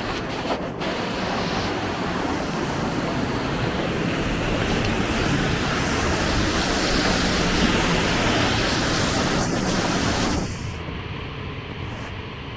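Waterfall, a steady rushing of falling water. About ten and a half seconds in it turns quieter and duller, losing its high hiss.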